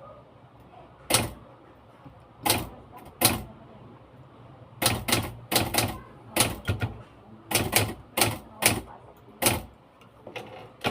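Typewriter keys struck slowly and unevenly, one at a time: about fifteen sharp clacks, some alone and some in quick runs of two or three, with pauses between.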